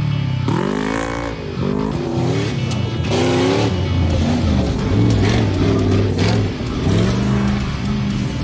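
Engine of a stripped-down Jeep Grand Cherokee race Jeep revving hard as it drives past, its pitch rising and falling again and again as the driver works the throttle.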